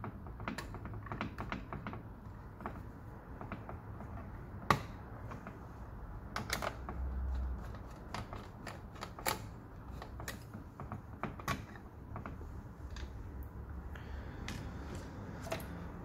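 Irregular plastic clicks and snaps of the terminal cover being worked loose and taken off a small variable frequency drive, the sharpest snap about five seconds in.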